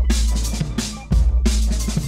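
Background electronic music with a drum kit and heavy bass; a deep bass hit lands just before the start and again about a second in.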